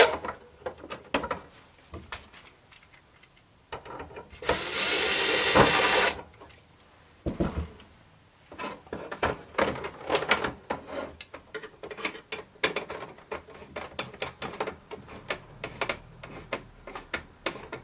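A power drill running for about two seconds, driving a machine screw into the pump kit's assembly. This is followed by many small clicks and taps of parts being handled.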